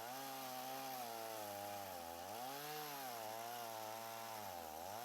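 Stihl 170 two-stroke chainsaw cutting through the butt end of a log. Its engine pitch sags twice as the chain works through the wood.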